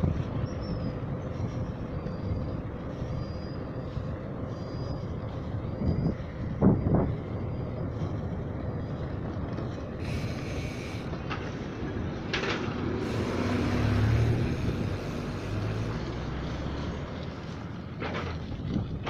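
Wind buffeting the microphone and tyre noise from a bicycle riding over concrete, with a couple of short knocks about six to seven seconds in. A motor vehicle's low engine hum swells and fades a little past halfway.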